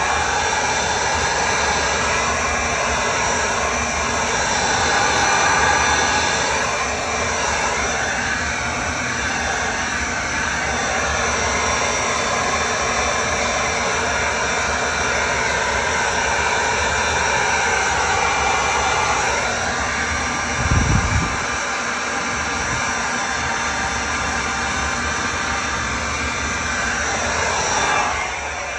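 Electric heat gun running: a steady rush of blown air with a motor whine that wavers in pitch as the gun is moved. A brief low thump about two-thirds of the way through.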